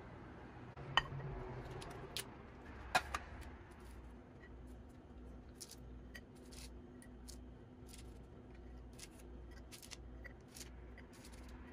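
Two sharp clacks about one and three seconds in, then light taps and clicks as frozen nut clusters are lifted off parchment paper on a metal baking tray and set down on a ceramic plate.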